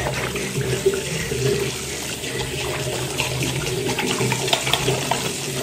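Tap water running steadily into a bathroom sink, with hands rubbing a wet bar of soap under the stream.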